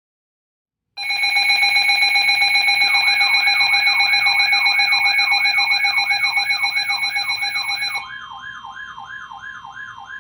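Electronic emergency alert tones for a snow squall warning start abruptly and loud: several steady tones with a rising sweep repeating about three times a second. Near the end the steady tones cut off and the sweep carries on, quieter, over a lower steady tone.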